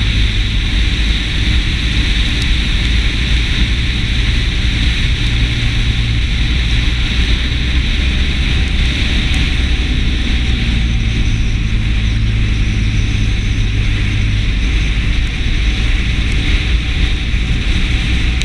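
Motorcycle engine running at a steady road speed, under heavy wind noise rushing over the microphone.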